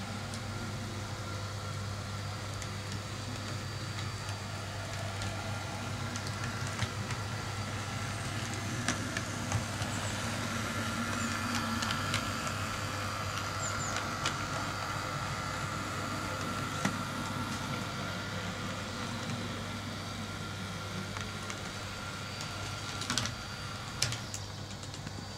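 Small electric motor of a TT-scale model class 850 railcar running smoothly and quietly: a faint steady whine that grows a little louder in the middle, with light clicks as the wheels cross rail joints and points, over a steady low hum.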